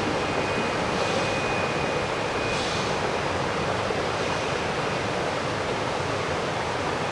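River water rushing steadily over rocky rapids. A faint, thin high tone fades out about three seconds in.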